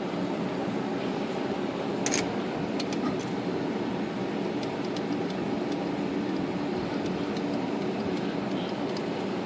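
Steady low background hum. Over it come a few light metallic clicks, the clearest about two seconds in, as the Royal 10 typewriter's type-bar links and parts are handled during the repair.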